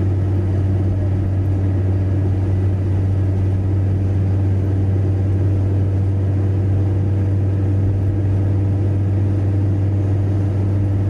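Steady drone of a car cruising at motorway speed, heard from inside the cabin: a constant low hum over even road noise, with no change in pitch or level.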